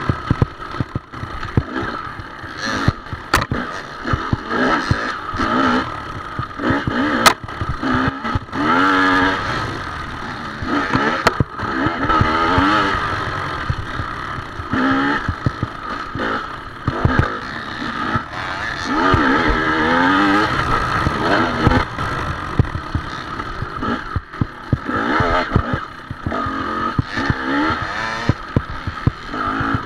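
Off-road dirt bike engine revving up and down over and over as it is ridden along a rough trail, with frequent clattering knocks from the bike over the bumps.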